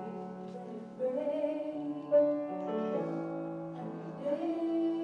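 A voice singing a slow worship song with piano accompaniment, holding long notes; the word "afraid" is sung about two seconds in.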